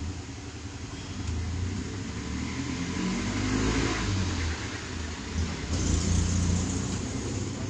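A motor or engine running with a low hum that swells louder about halfway through and again near the end.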